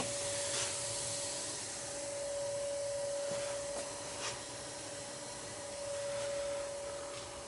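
Gas-fired hot-water boiler running with its burner lit, a steady hiss with an even, constant hum over it.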